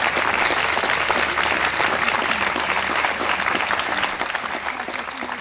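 Audience applauding, many hands clapping steadily, fading off a little near the end.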